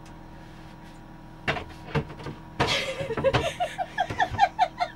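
Knocks and a scrape from an oven being lifted and shifted into a boat's galley cabinet, then a quick run of short high squeaks, about four a second.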